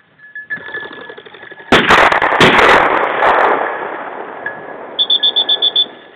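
Two shotgun shots fired at flushing pheasants, less than a second apart, each followed by a long echoing tail. Near the end comes a quick run of about eight high beeps.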